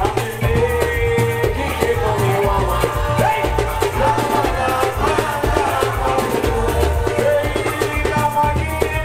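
Loud live Garifuna dance music played through a PA: a heavy bass and drum beat with a voice singing over it.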